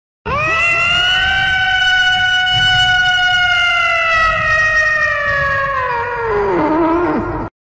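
A cat's loud, long yowl: one held note that swoops up at the start, sags slowly, then drops in pitch and cuts off suddenly near the end.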